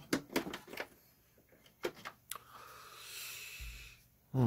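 Light clicks and taps from handling the opened desktop computer's parts, then a breathy hiss lasting about a second and a half.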